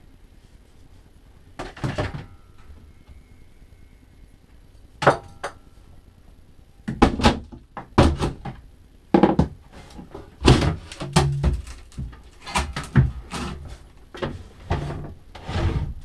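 Wooden cabinet panel being knocked and wrenched loose from the boat's joinery. It gives a string of hard knocks and thumps: two lone ones in the first five seconds, then a busy run from about seven seconds in, as the panel comes free.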